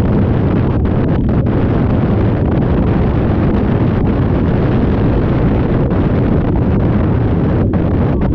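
Twin big-block V8 engines of a 1997 Fountain 29-foot step-hull powerboat running steadily at cruising speed, their loud low rumble mixed with heavy wind buffeting on the microphone and rushing water from the hull and wake.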